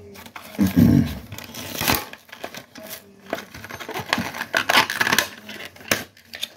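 Plastic blister pack and cardboard card of a die-cast toy car being opened by hand: plastic crinkling and card scratching with scattered clicks, busiest in the middle.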